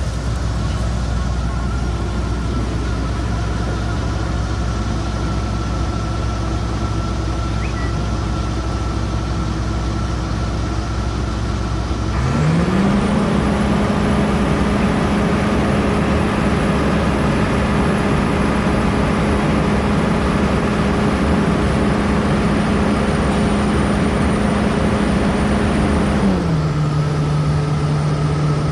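John Deere combine's freshly overhauled diesel engine running at idle, then throttled up with a quick rise in pitch about halfway through, held steady at high revs with a faint high whine, and brought back down to idle near the end: a test run after reassembly.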